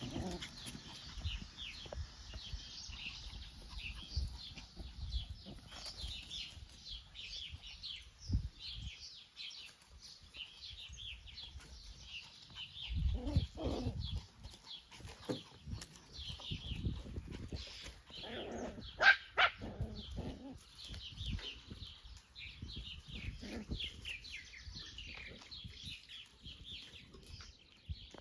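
Seven-week-old micro mini sheepadoodle puppies giving a few short yips and barks, the loudest about two-thirds of the way through, over songbirds chirping steadily.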